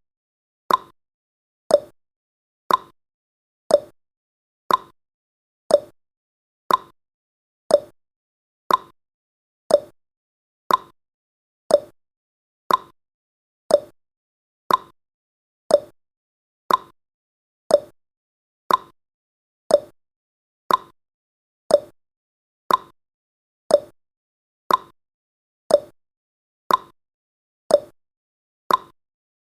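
Clock-style tick-tock sound effect of a countdown timer: one short, sharp tick every second, alternating between a higher and a lower tick.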